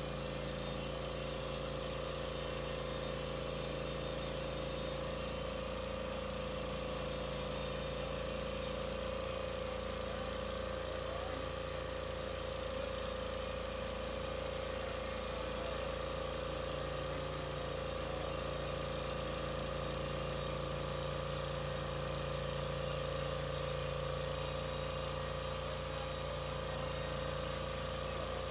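Norwood LumberPro HD36 portable bandsaw mill running steadily at full speed, its engine and band blade holding an even pitch as the head is pushed through a pine log.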